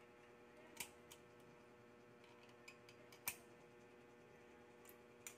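A few light metallic clicks as a small gear and bearing are handled and fitted on the end of a copier roller, the loudest about three seconds in, over a faint steady hum.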